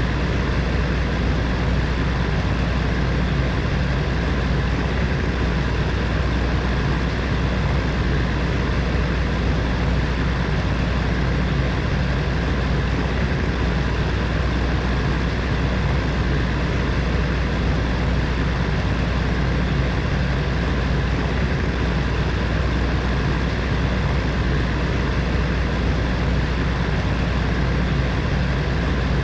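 Space heater's fan running steadily: a constant rushing of air over a low steady hum.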